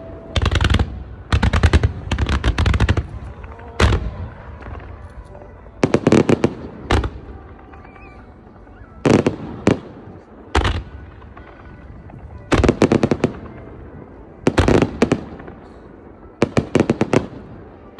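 Fireworks display: shells bursting in quick volleys of sharp bangs and crackles. The volleys come in clusters of rapid reports every second or two, with quieter gaps between.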